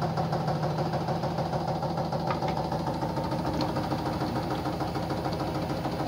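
Samsung Eco Bubble washing machine running its spin with a badly unbalanced load: a steady motor and drum hum with a light vibration, but no heavy shaking or banging.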